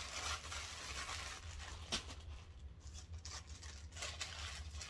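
Clear plastic bag crinkling as it is crumpled up in the hands, dense at first, then thinning to scattered crackles and clicks.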